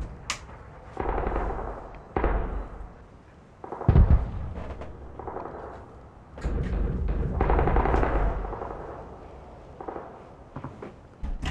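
A run of loud thumps and booms, each about a second long with a deep rumble, and a sharp bang about four seconds in.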